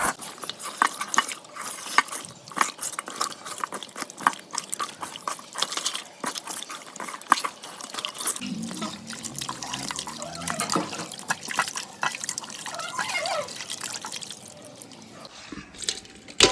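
Raw chicken pieces being washed by hand in water: irregular splashing and sloshing with drips.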